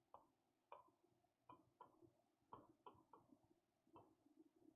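Near silence with about ten faint, irregular ticks and taps of writing strokes on a blackboard.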